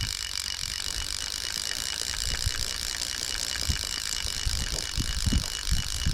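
Fly reel's click-and-pawl ratchet buzzing steadily as the spool turns while a hooked trout is played, with a few low thumps in the second half.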